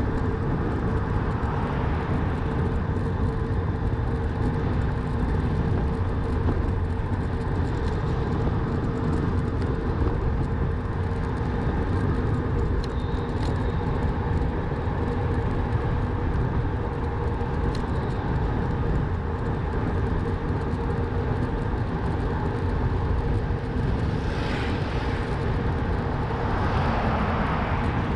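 Steady riding noise from a moving bicycle: low rumble and rushing air on the microphone, with a faint steady hum, unbroken throughout.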